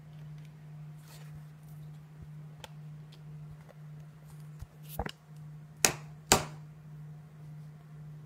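Handling noise from a phone camera being picked up and moved: three sharp knocks in the second half, the last two loudest, over a steady low electrical-sounding hum.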